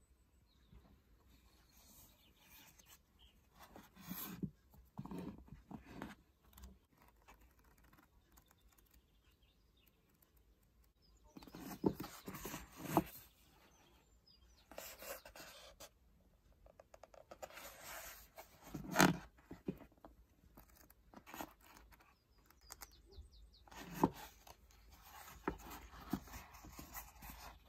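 Pages of a paperback book being turned and thumbed through by hand: several separate bouts of paper rustling and flicking, with quiet gaps between.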